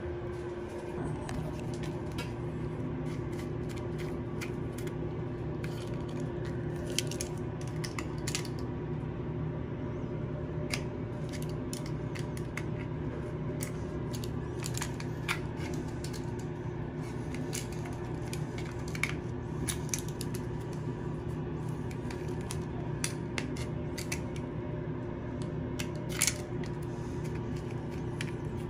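A small metal blade tool working against glass-bead vinyl wallpaper, making light scattered ticks and scrapes at irregular intervals. A steady low hum runs underneath.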